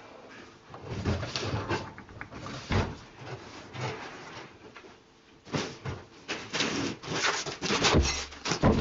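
Irregular knocks, clunks and scrapes of a station-wagon tailgate and its hardware being worked loose by hand, thickest and loudest in the last three seconds.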